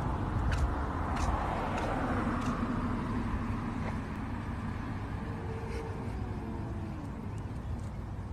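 A car passing on the street: steady tyre and engine rumble that swells in the first few seconds and then eases off.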